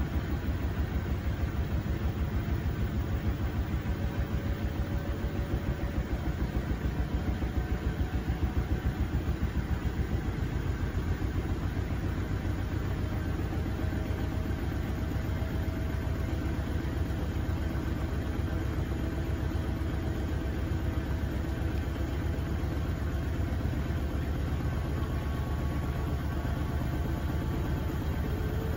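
Front-loading washing machine drum spinning an unbalanced load: a steady low rumble that pulses rapidly with the turning drum, with a faint motor whine drifting slowly in pitch.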